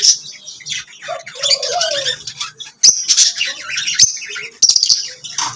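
Lovebirds chirping: a dense run of rapid, high, overlapping chirps, with a lower call that rises and falls in pitch about a second in and a few sharp clicks.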